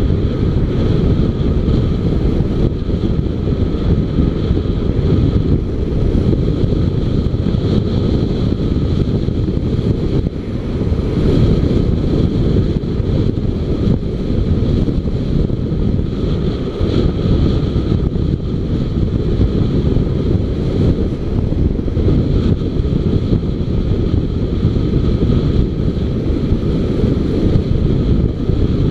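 Motorcycle riding along a road: heavy wind rumble on the microphone, with the bike's engine and road noise beneath it.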